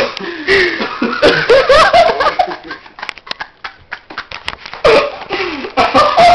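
A group of people laughing loudly in two bouts, the first starting abruptly and the second about five seconds in.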